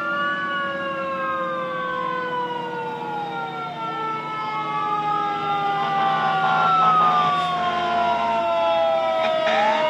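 Several emergency vehicle sirens sounding at once, with slow wails rising and falling over one another in an overlapping, out-of-step chorus. The sirens are loudest about two-thirds of the way in.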